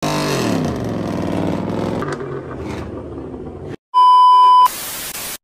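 An engine revving, its pitch falling over the first two seconds and then dying away. After a moment of silence, a loud, steady electronic bleep tone sounds for under a second about four seconds in, followed by a short burst of hiss.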